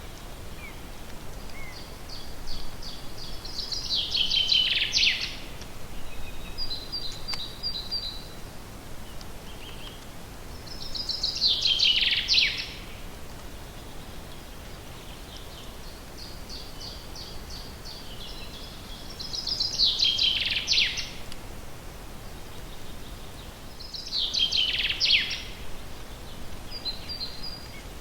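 A forest songbird singing the same song four times, each a quick run of high notes building into a louder, falling flourish, with shorter runs of quick high notes from other birds in between, over a steady background hiss.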